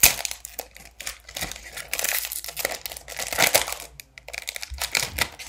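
Foil wrapper of a trading-card pack being torn open and crinkled by hand: a run of irregular sharp crackles and rustles, loudest at the first rip.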